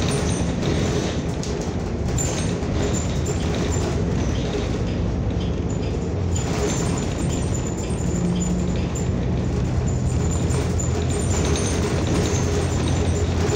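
Cabin noise of a New Flyer XN40 natural-gas city bus under way: a steady engine and road drone, with the low engine hum growing stronger from about ten seconds in.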